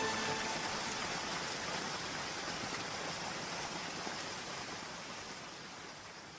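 Steady rain with no music over it, fading out gradually.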